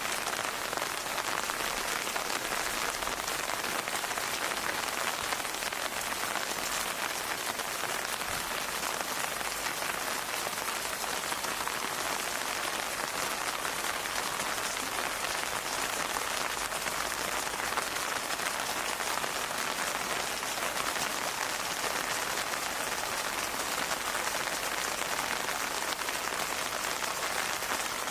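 Steady rain falling and pattering on a surface, a dense even hiss of many drops with no change in intensity.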